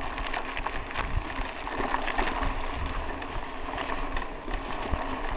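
Raleigh Ascent mountain bike rolling along a dirt road: steady noise of the tyres on the loose dirt, with frequent small clicks and rattles from the bike over the bumps.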